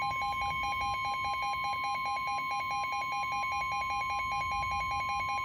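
Weather radio alert: the NOAA Weather Radio warning alarm tone, one steady high-pitched tone, sounding together with a lower beep that pulses about ten times a second. The tone signals that a warning, here a flash flood warning, is about to be broadcast.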